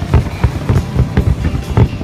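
Fireworks display bursting: a rapid, uneven string of deep booms, about four a second.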